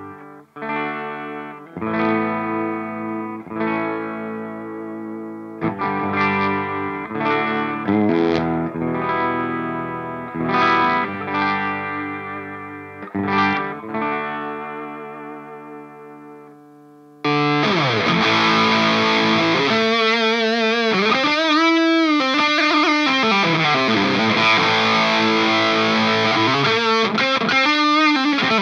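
Electric guitar played through a Kelt Mostro Redhead amp and Kelt 2x12 cabinet. First come single chords, each strummed and left to ring out. About two-thirds of the way in, the Nux Plexi Crunch overdrive pedal is switched on, and a much louder, sustained, crunchy distorted riff follows.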